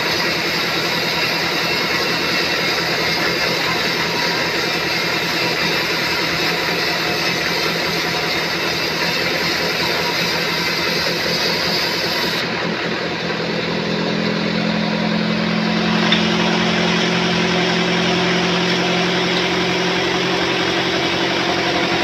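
Sawmill saw running steadily as it cuts a teak log. About two-thirds of the way through, the sound settles into a steadier low hum.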